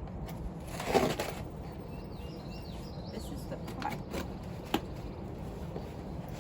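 A package being handled and opened by hand: a brief rustle about a second in, then a few light clicks and taps. Faint bird chirps sound in the background over a low steady hum.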